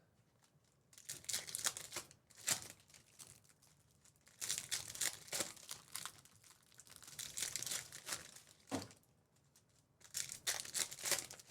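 Trading card pack wrappers being torn open and crinkled, in several separate spells of tearing and crinkling a second or two long.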